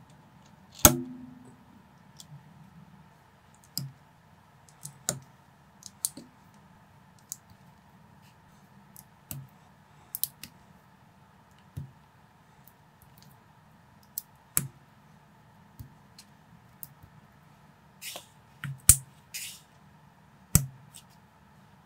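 Plastic building bricks being handled and pressed together, giving irregular sharp clicks a second or two apart, the loudest about a second in and a quick run of them near the end.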